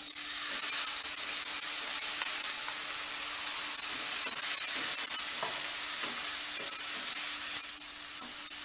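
Soaked moong dal and its water poured into hot oil and fried vegetables in a nonstick kadai, setting off a steady loud sizzle while a wooden spatula stirs and scrapes the pan. The sizzle drops off abruptly near the end.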